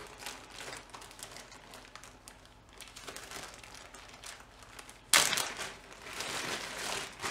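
Clear plastic bag rustling and crinkling as gloved hands rummage through it for spare 14 mm bolts, faint at first, with a sudden louder burst of crinkling about five seconds in.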